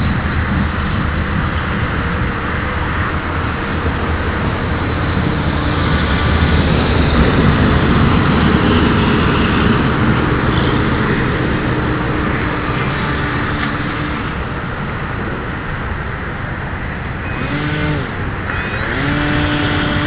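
Airboat's engine and propeller running loudly and steadily, with the engine pitch shifting up and down near the end.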